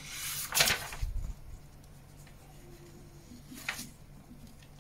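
Paper pages of an instruction manual being handled and turned: a rustle in the first second, then a short click about three and a half seconds in.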